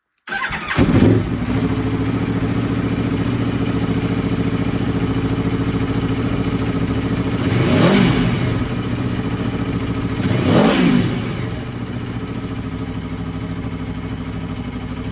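2012 Aprilia Tuono 1100's V4 engine starting, catching at once with a brief flare of revs, then idling steadily. It is blipped twice, at about eight and eleven seconds, each a quick rise and fall in revs, before settling back to idle.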